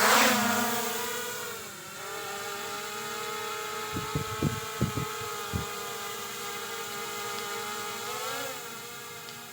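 A small drone's propeller motors start up with a sudden loud whine. The pitch dips about two seconds in and then holds steady, wavers briefly near the end, and a few low thumps fall in the middle.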